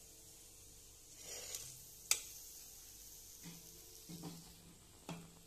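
Faint sizzling of hot frying oil, with a few light knocks and one sharp click about two seconds in.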